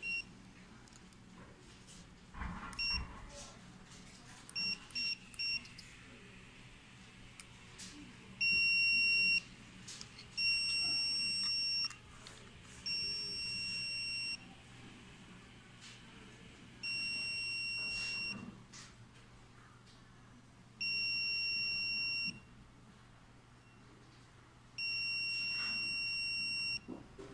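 Electronic beeper of a GPS wireless dog fence collar: a couple of short beeps, then three quick beeps, then six long, steady high-pitched beeps of about a second or more each, repeating every few seconds. A soft handling knock comes just before the first beeps.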